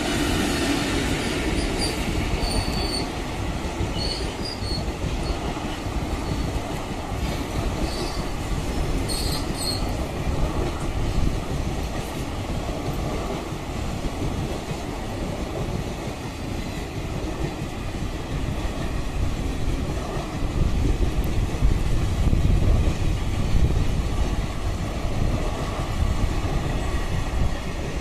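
Express train's passenger coaches, hauled by a WAP-4 electric locomotive, rolling past: a continuous rumble and rattle of wheels on the rails. A few short high squeals come in the first ten seconds, and the rumble grows louder about twenty seconds in.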